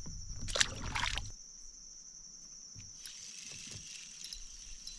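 A small redbreast sunfish dropped back into the water with a brief splash about half a second in, then faint water trickling and sloshing around the kayak. A steady high-pitched insect drone runs underneath.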